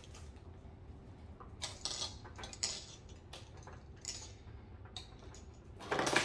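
Small hard fidget toys clicking and clattering as they are handled and set down on a surface, a few separate knocks spread through, with a louder rustling clatter near the end.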